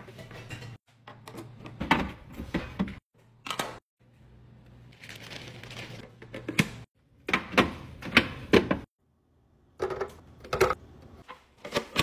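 Clear plastic fridge storage bins being handled while produce is packed into them: a string of sharp plastic clacks and knocks with some rustling, broken by several brief drop-outs to silence.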